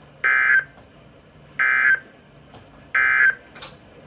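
NOAA Weather Radio SAME digital data bursts: three short bursts of tone about 1.35 seconds apart. Coming right after the spoken message ends, they are the end-of-message code that closes the weekly test broadcast.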